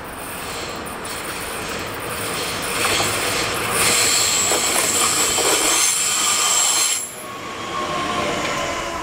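Red Bombardier Talent 2 electric multiple unit passing, its wheel and running noise building to a peak with a thin high-pitched wheel squeal over it. The noise drops suddenly about seven seconds in and leaves a quieter fading rumble.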